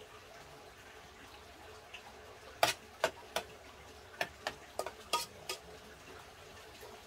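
Eating utensil clinking and scraping against a pot while mixed rice is stirred and eaten from it: about ten sharp clinks, some ringing briefly, in a cluster starting about two and a half seconds in.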